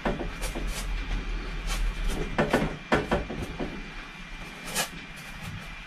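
A scattering of light knocks and clicks, bunched together about two to three seconds in with a single one near the end, over a steady low hum.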